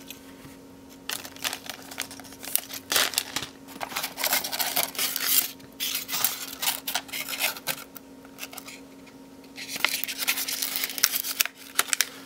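Plastic packaging crinkling and rustling in irregular bursts of crackles and clicks as clear zip bags and a foam box insert are handled; near the end a denser, longer stretch of crinkling as a metallic anti-static bag is pulled out.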